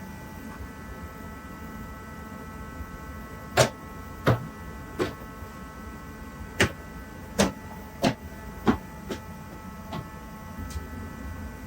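A series of about nine sharp clicks and knocks, irregularly spaced, from hand work on a truck's outside door handle, over a steady hum.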